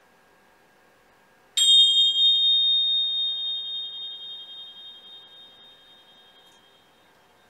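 Tingsha cymbals struck together once, ringing out in a high, pure, slightly wavering tone that fades slowly over about five seconds.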